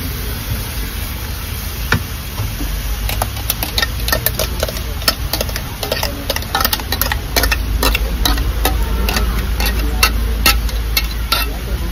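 Wooden spatula scraping and knocking against a frying pan and a steel tumbler as tomato purée is stirred into fried onions: an irregular run of quick clicks starting about three seconds in, over a low steady hum.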